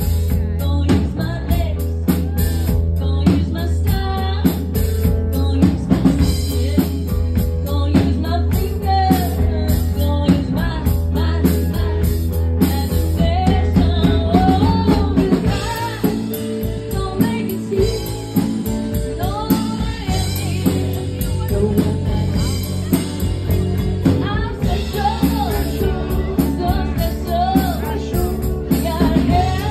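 Live rock band: a woman singing into a handheld microphone over a drum kit, electric guitar and bass guitar. The low bass falls away for a couple of seconds about halfway through, then comes back.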